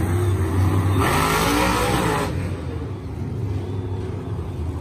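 Monster truck's supercharged V8 engine revving up and down as the truck drives past, with other truck engines running. About a second in, a loud hissing rush comes in and lasts about a second.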